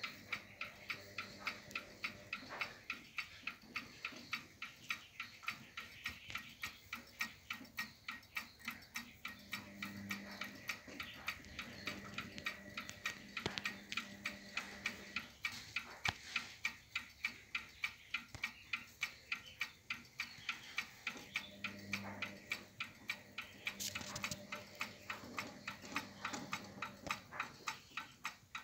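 Grandfather clock's brass movement ticking: the escapement gives a steady, even train of sharp ticks.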